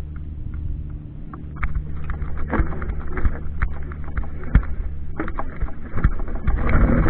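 Mountain bike rattling and knocking over a rough, rocky trail, with irregular sharp knocks throughout. A steady low hum runs under them and stops about five seconds in.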